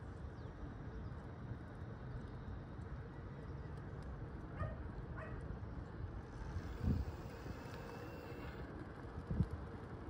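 Steady rumble of wind on the microphone and tyres rolling over asphalt while riding along an empty road, with two dull knocks, one about seven seconds in and one near the end.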